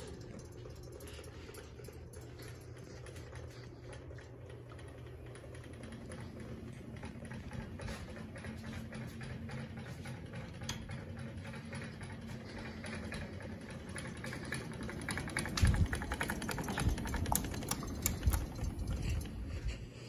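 Ceiling fans running: a steady motor hum with rapid clicking and rattling that gets busier toward the end. A second hum joins about six seconds in, and there are a few heavy thumps in the last few seconds.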